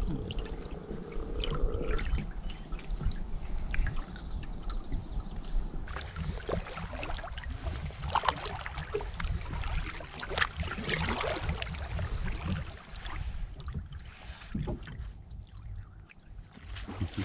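Canoe paddles dipping and pulling through calm water, with splashes and drips off the blades, over a low rumble; the strokes thin out near the end.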